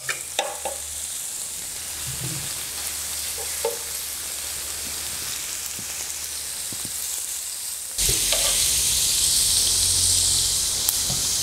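Slices of pork belly sizzling in cooking oil on a flat griddle plate, a steady hiss; about eight seconds in it jumps suddenly louder and hissier.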